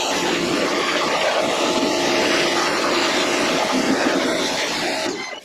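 Pressure washer running and spraying the Jeep frame: a steady hiss from the water jet over a steady machine hum. It cuts off abruptly near the end.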